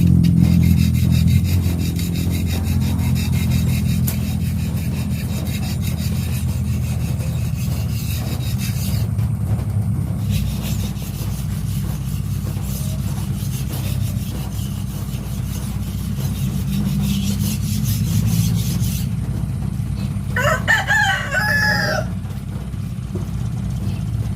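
A steady low rumble, with a rooster crowing once about twenty seconds in.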